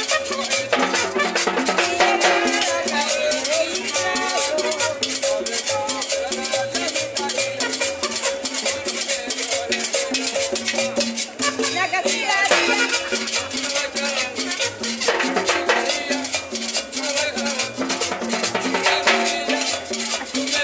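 Live Latin dance music from a small street band, with timbales struck with sticks over a steady beat.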